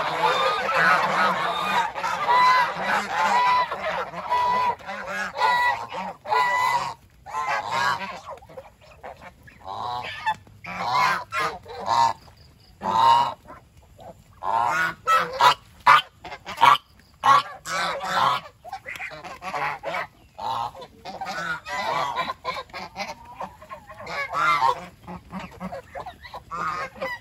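A flock of domestic geese honking and calling. For the first several seconds many voices overlap, then it thins to separate, scattered honks.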